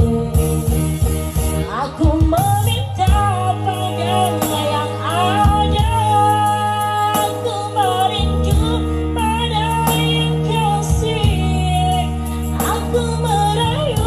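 Music from a Malay pop ballad: sustained bass and chords under a gliding melody line, with no lyrics sung.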